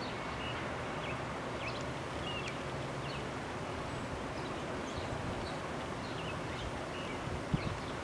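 Outdoor garden ambience: birds chirping in short, high calls again and again over a steady low background noise, with a couple of soft low thumps near the end.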